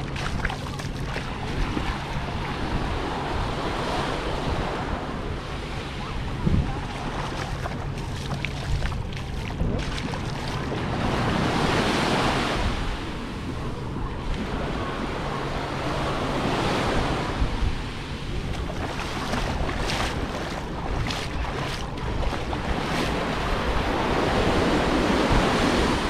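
Sea waves breaking and washing up the beach, swelling twice (about halfway through and again near the end), with wind buffeting the microphone.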